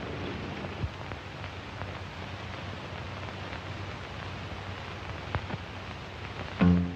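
Steady hiss with a few faint clicks, typical of an old film soundtrack when no one is speaking. An acoustic guitar starts strumming near the end.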